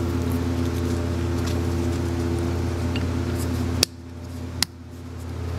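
Steady machine hum, like an air conditioner or fan, with two sharp clicks about four seconds in as small shift-fork parts are handled. After the first click the hum drops away suddenly, then slowly builds back.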